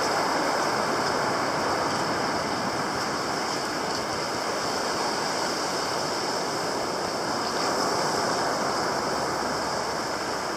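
Steady rushing wash of sea surf on a beach.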